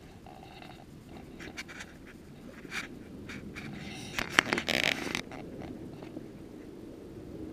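Pack of dogs milling and playing on a dirt forest floor: scattered short rustles and scuffs of paws and bodies, with a brief louder burst of rustling and a sharp click about four seconds in.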